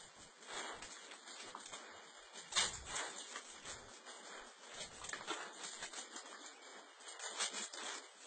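A dog scrabbling and rustling as it hunts a rat: irregular scratching and scuffling, with a sharper knock about two and a half seconds in.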